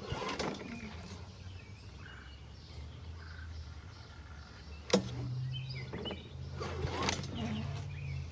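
Starter rope of a Honda GCV160 lawnmower engine pulled out of its recoil starter by hand, with one sharp click about five seconds in. The recoil is weak and slow to take the rope back, so the rope is left hanging out. From the click on there is a low steady hum, and birds chirp faintly.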